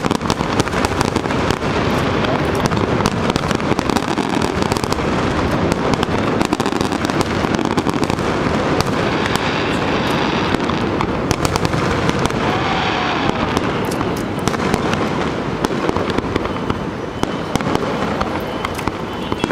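Fireworks finale barrage: a dense, continuous run of bursts and crackling with no break.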